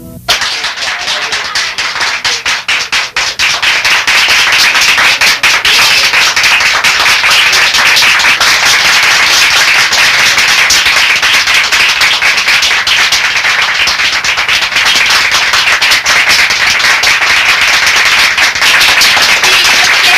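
Crowd applauding: scattered claps that build within about four seconds into dense, steady applause.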